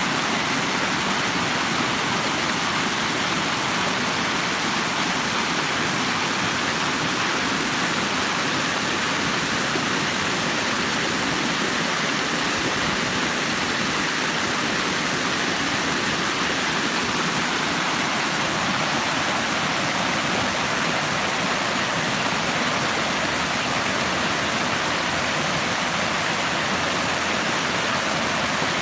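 Running water: a steady, even rush of flowing or falling water with no breaks.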